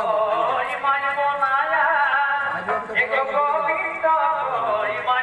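A man singing a Jhumair folk song, the voice holding and sliding between notes in long phrases.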